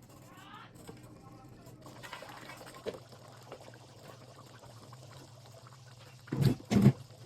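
Liquid being poured briefly, with a rising pitch, among faint small clinks, then two dull thumps close together near the end.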